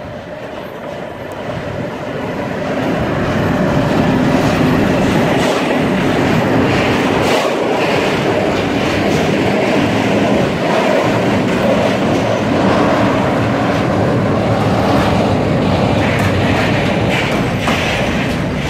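Freight train of tank wagons rolling close past behind a Czech class 742 diesel locomotive. The engine and wheel rumble grows over the first few seconds, then holds steady, with wheels clacking over the rail joints.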